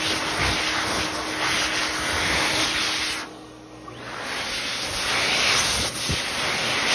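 ASI Turbo-Dri hand dryer blowing air onto a hand, a steady rushing noise. A little after three seconds in it drops away sharply, then builds back up over the next second or two and runs on.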